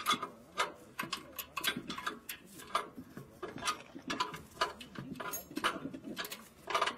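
Irregular metal clicks and clinks of steel parts being handled and fitted by hand on a walking-tractor reaper during assembly, several knocks a second.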